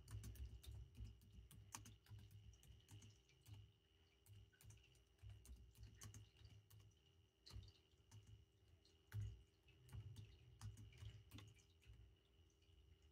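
Near silence with faint, irregular taps and clicks of typing, over a low rumble.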